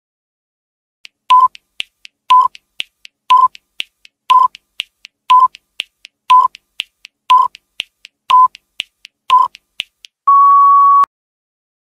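Countdown-timer sound effect: a short beep once a second, with fainter ticks between, ending in one longer, slightly higher beep as the count reaches zero.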